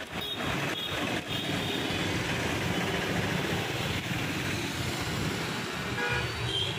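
Steady rushing noise of road traffic.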